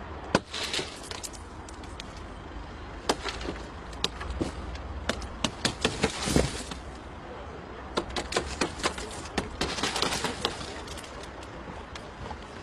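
A red emergency window-breaking hammer strikes and shatters a car's rear tailgate window near the start, followed by crumbling glass. A run of sharp taps and clinks follows as the crazed safety glass is knocked out of the frame.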